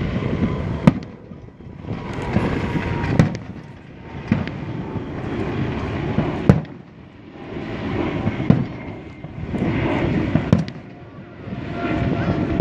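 Fireworks going off: sharp bangs every second or two, with a crackling rumble that swells and fades between them.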